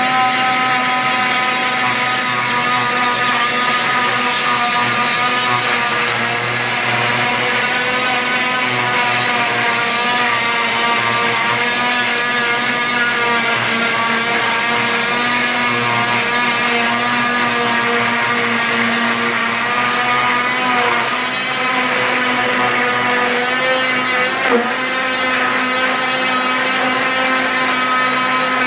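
Electric oscillating cast saw running steadily with a whine, its blade cutting through a leg cast; the pitch wavers a little as the blade is pressed and moved along the cast, with a brief sharp tick near the end.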